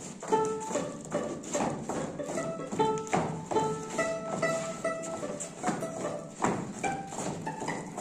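Hungarian folk dance music, a melody of held notes, with the rhythmic stamping and clicking of dancers' boots on the stage floor.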